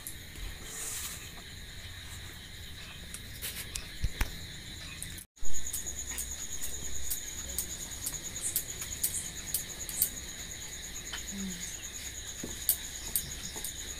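Crickets chirring steadily in the background, with scattered light taps and clicks from kneading and rolling out dough. About five seconds in the sound drops out for a moment, then a single sharp click, the loudest thing here.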